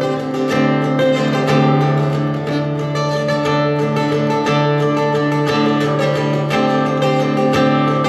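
Solo acoustic guitar played without singing: a steady run of picked and strummed notes over a ringing low bass note that changes every couple of seconds.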